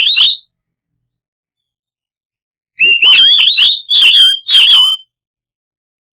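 Oriental magpie-robin (kacer) song played as a lure to set a silent bird singing. A loud whistled phrase ends just after the start. About two and a half seconds later comes a second phrase of rapid, sweeping whistled notes lasting about two seconds.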